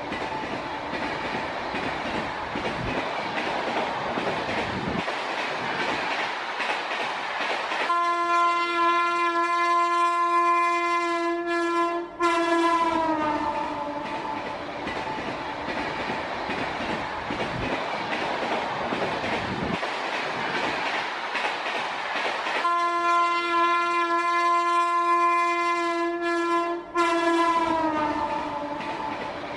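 Train running past with a steady rumble of wheels on track. Its horn sounds two long blasts of about four seconds each, one a third of the way in and one near the end, and each blast slides down in pitch as it ends.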